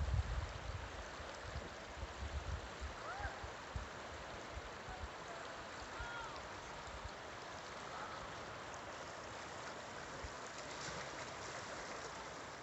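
Sea washing over a rocky shore and shingle, a steady hiss of surf, with some low thumps in the first few seconds.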